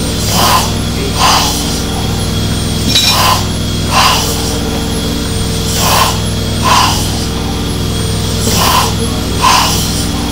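1870s single-cylinder stationary steam engine running slowly, puffing in a steady rhythm: pairs of puffs about three quarters of a second apart, one pair every two to three seconds, over a steady low hum.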